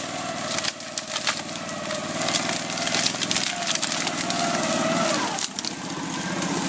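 Engine of a twin-tracked ATV running under load while it pushes through brush, with branches and twigs cracking and snapping against it. The engine note dips briefly about five seconds in, then picks up again.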